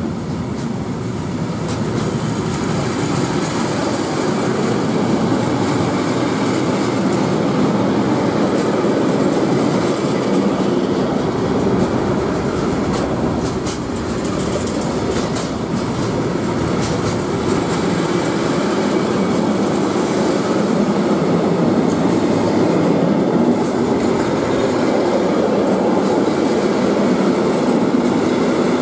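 Long intermodal freight train rolling past: loaded wagons carrying lorry semi-trailers, then containers, with a loud, steady rumble of wheels on rail. A few sharp clicks come through around the middle.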